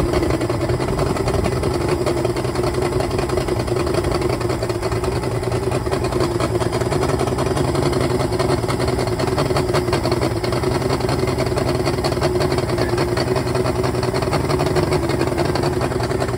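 2004 Yamaha fuel-injected two-stroke V6 outboard running uncowled, running rough because only two of its six cylinders are firing: four ignition coils are not giving spark.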